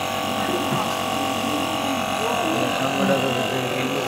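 Electric compressor nebulizer running with a steady hum, its motor and pump giving a constant droning tone.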